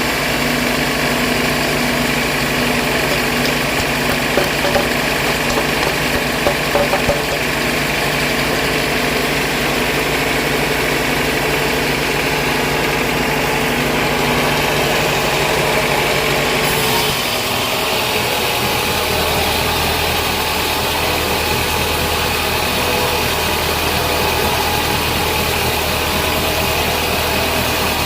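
Sawmill band saw machinery running steadily, with its engine-like drone and a few light knocks early on; about two-thirds of the way through its low note drops and settles at a deeper pitch.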